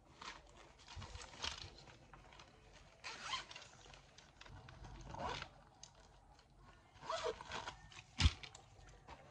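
Canvas tote bags being unfolded and handled on a wooden desk: fabric rustling and sliding in short bursts, with a sharp light knock on the desk about eight seconds in.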